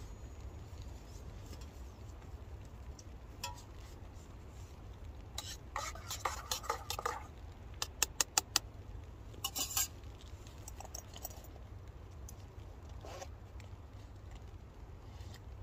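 A spoon stirring and scraping in a metal camping mug of hot chocolate, then five quick metallic taps on the mug about eight seconds in, with a few lighter clinks after, over a low steady rumble.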